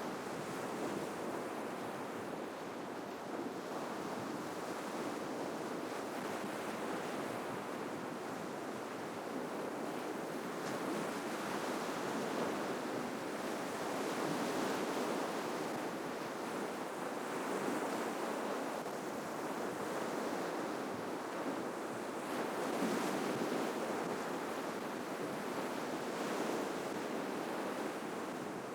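Ocean waves breaking on the shore: a steady rush of surf that swells and eases as each wave comes in, loudest around the middle and a few seconds before the end.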